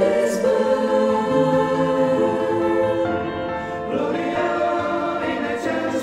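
Church choir singing in harmony, slow, long-held chords, moving to a new chord about three seconds in.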